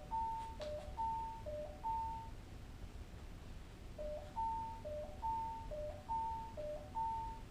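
Two-tone electronic doorbell chime (a 'pin-pon' intercom chime) rung over and over: two rings, a pause of about two seconds, then four more in quick succession.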